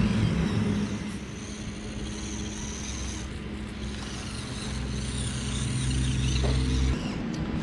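Small electric motor and gear drive of a 1/24-scale Axial SCX24 crawler running as the truck crawls forward, a steady hum that deepens and strengthens for a couple of seconds near the end and then stops abruptly.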